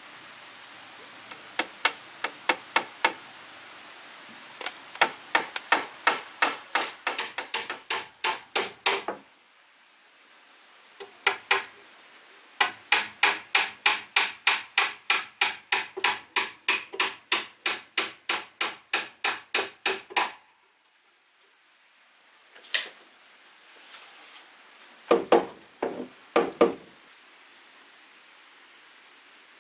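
Hammer blows on wood in quick, even runs of about four strikes a second, broken by pauses, with a few slower single strikes near the end.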